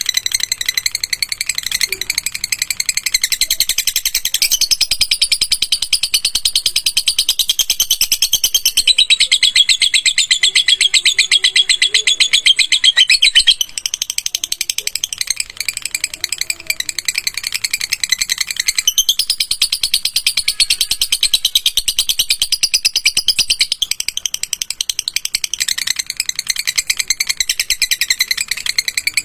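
Lovebird chattering in a long, very rapid trill ('ngekek'), a fast rattling run of shrill pulses that goes on for many seconds at a time with only short breaks.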